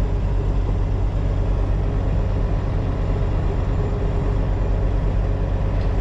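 Semi-truck's diesel engine running steadily, a low, even drone.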